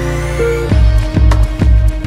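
Electronic background music: held synth notes with a rising sweep, then a heavy beat with deep bass kicks comes in under a second in.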